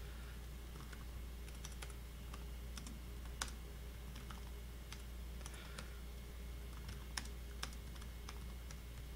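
Typing on a computer keyboard: faint, irregular keystrokes with a few sharper taps, over a steady low hum.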